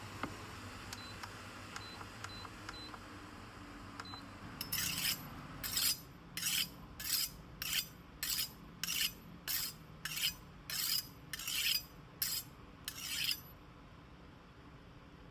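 A kitchen knife being sharpened: about a dozen even scraping strokes of the blade, roughly one and a half a second, starting a few seconds in and stopping near the end.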